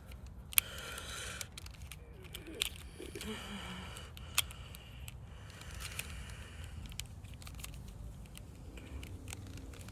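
Plastic clicks and scrapes of a small Rubik's cube being handled, its broken-out pieces pushed back into place, with scattered sharp clicks.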